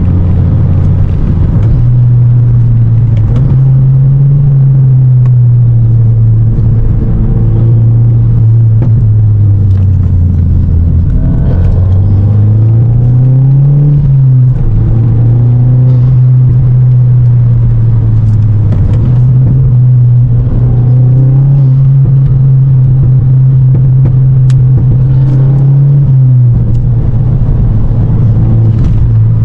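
2023 VW MK8 GTI's turbocharged 2.0-litre four-cylinder engine droning under way, heard from inside the cabin over road rumble. The engine note steps up and down in pitch several times, and about halfway through it climbs briefly, then drops suddenly.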